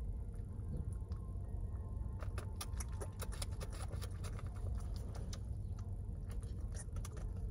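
Baby coatimundi suckling milk from a feeding bottle: quick, irregular wet clicks and smacks of its mouth on the nipple, starting about two seconds in.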